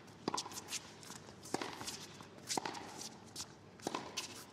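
A string of light, sharp taps: roughly one louder tap every second with softer ones in between.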